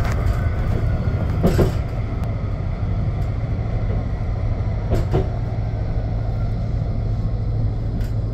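Onboard running noise of a Bombardier Flexity 2 tram: a steady low rumble, with a couple of short knocks about a second and a half in and again about five seconds in.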